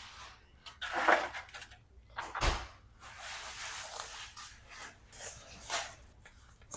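Kitchen handling sounds: several short rustles and scrapes, with a soft knock about two and a half seconds in, as chicken tenders are rolled in brown sugar and set in a disposable aluminium pan.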